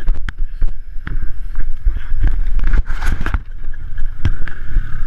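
Dirt bike riding through a flooded mud track, its engine running under a steady low rumble, with water splashing and many irregular knocks and bumps. Wind buffets the camera's microphone.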